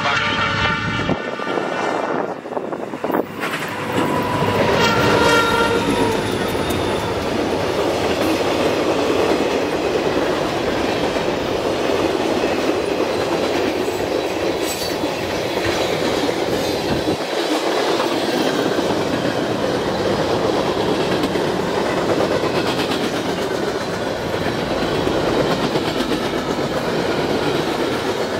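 Freight train of diesel locomotives, CP 6024 and CMQ SD40-2F 9020, passing close by with the horn sounding at the start. It is followed by a long string of loaded ballast cars rolling steadily past, the wheels clacking over the rail joints.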